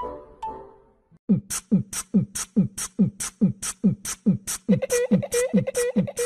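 Background music: a chiming melody fades out in the first second, then a fast even percussive beat starts, low drum hits alternating with high hi-hat-like ticks at about four to five strokes a second, with a pulsing held note joining near the end.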